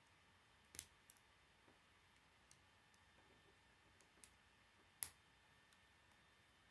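Plastic K'nex rods and connectors clicking and snapping against each other as they are fitted together: several short, sharp clicks, the loudest about five seconds in.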